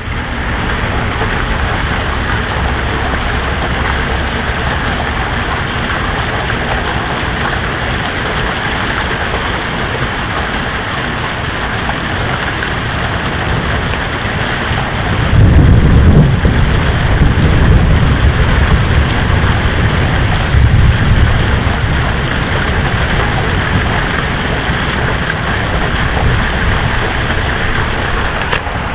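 Steady rain, an even hiss. About halfway through, a low rumble of thunder rolls in for several seconds, and a second, shorter rumble follows a few seconds later.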